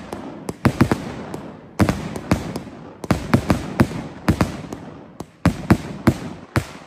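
Skull Crusher fireworks cake firing shot after shot: loud, sharp bangs of launches and breaks in quick, irregular succession, about three a second, with a brief lull midway.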